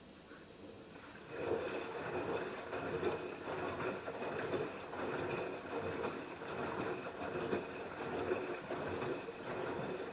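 LG F10B8QD1 front-loading direct-drive washing machine running a wash. About a second in, the drum starts turning and the wet laundry and water inside start sloshing.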